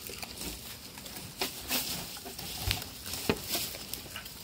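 Goats eating bamboo leaves: irregular crackling and rustling as the leafy stems are pulled and chewed, with a few sharper snaps scattered through.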